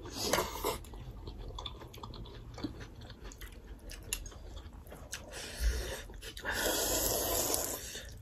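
Close-miked eating of thukpa noodle soup: chewing and slurping of noodles, with light clicks of forks and spoons. A longer slurp comes about two-thirds of the way through.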